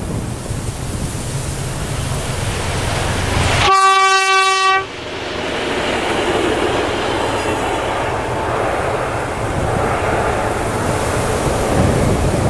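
SU42 diesel locomotive hauling a passenger coach sounds one horn blast of about a second as it nears, cut off sharply. The train then runs past close by, with the engine and wheels rumbling and clattering over the rails.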